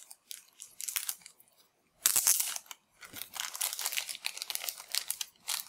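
Thin clear plastic wrapper crinkling as it is peeled and pulled off a phone battery: a short crinkle under a second in, the loudest crackle about two seconds in, then continuous crinkling from about three seconds.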